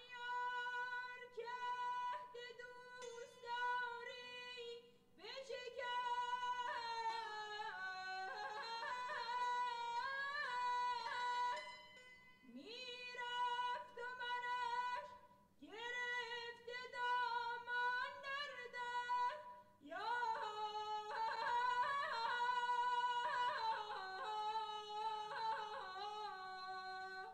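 A fifteen-year-old girl singing Persian classical avaz in the mahur mode, from an archival 1965 tape recording. She sings about five long melismatic phrases full of quick warbling ornaments, with short breaths between them, over a faint steady hum.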